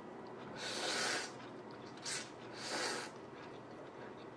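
A person slurping mie ayam noodles off chopsticks in three slurps. The first, starting about half a second in, is the longest and loudest, a short one follows around two seconds in, and another comes near three seconds.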